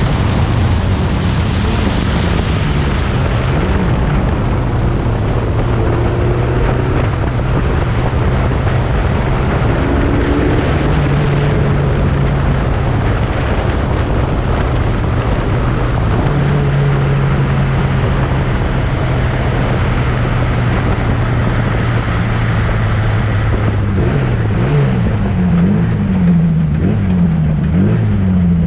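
1960s prototype racing car engines running hard at a steady, high speed, their pitch shifting in steps. Near the end the pitch rises and falls over and over as the engines rev up and down through the gears.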